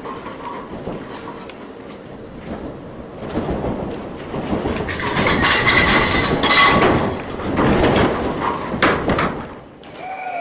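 Six-story light-frame wood building and its furnishings rattling and banging as a shake table drives it through a simulated earthquake. The clatter builds to its loudest in the middle and falls away suddenly near the end.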